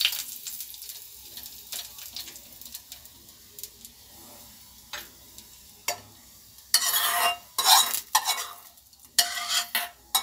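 Hot oil tempering (tadka) of cumin and garlic sizzling as it is poured into a steel tumbler of lassi, dying down to faint crackles. From about seven seconds in, a metal spoon scrapes the last of the tempering out of the small pan in several short, loud scrapes.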